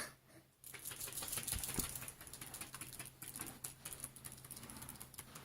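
Faint handling noise: many small irregular clicks and light rustling.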